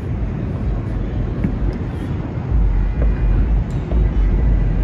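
Outdoor city ambience heard from a high balcony: wind rumbling on the microphone, heavier and gustier from about halfway through, over a steady city hum, with a few faint far-off pops of distant fireworks.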